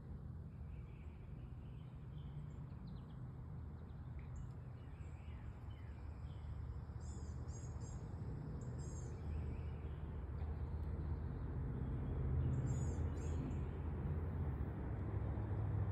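Birds chirping in short high calls, a few around the middle and again near the end, over a low rumble that grows steadily louder.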